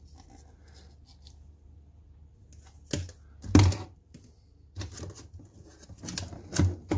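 Handling noise as a crested gecko is passed from hand to hand: five short, loud rustling scrapes, one close after another in the second half, the second the loudest, over a faint steady hum.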